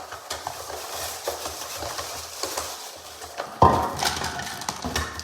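Small plastic skate-park parts and connectors being handled and clattered together, with light clicks and clacks and one louder knock about three and a half seconds in.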